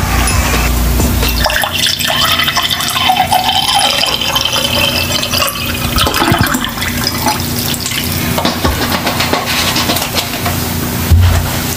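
Water poured from a plastic bottle into a glass mug, splashing as the mug fills.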